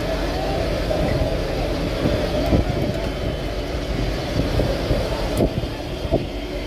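Fishing boat's engine running steadily, a constant low rumble.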